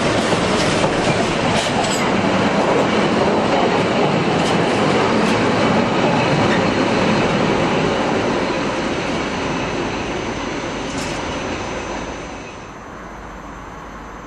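Container flat wagons of a freight train rolling past on the track, wheels clicking over the rail joints, the noise fading as the end of the train goes by. About twelve and a half seconds in it drops suddenly to a much quieter background.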